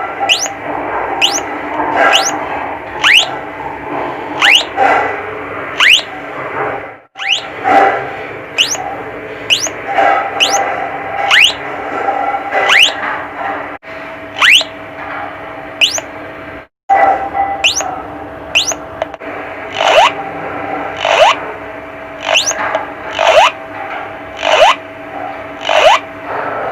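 Homemade BC548 transistor doorbell oscillator sounding through a small loudspeaker: quick falling chirps, like a bird, repeating about one and a half times a second over a steady hum. The sound cuts out briefly twice.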